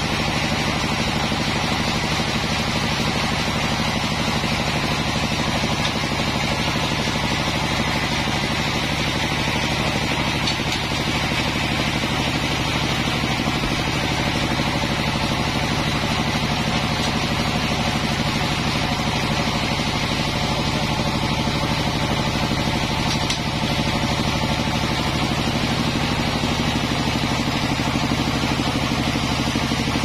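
Sawmill machinery running steadily, not cutting: an even drone with a low, constant hum.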